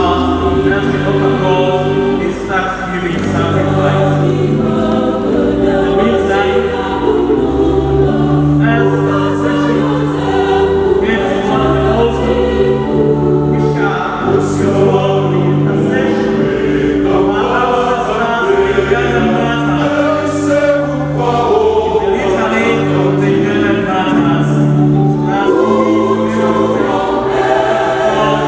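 Large church choir singing a hymn in parts, with long held notes over a low sustained bass line.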